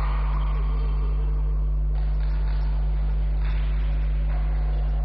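A steady low hum, unchanging throughout, over a faint background haze.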